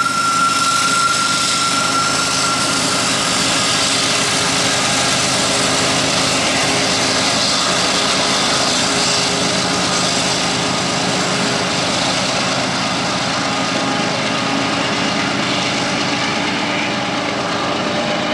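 Freight train passing while climbing a grade: diesel locomotives working hard under the steady rumble and hiss of wheels on rail. A high steady squeal fades out about three seconds in.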